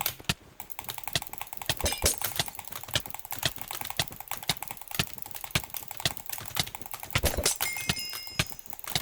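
Rapid, irregular clicking, several sharp clicks a second, some louder than others.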